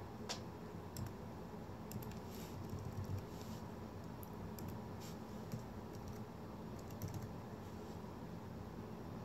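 Brass spinning top spinning on a concave glass base: faint, irregular light clicks and ticks over a low steady hum.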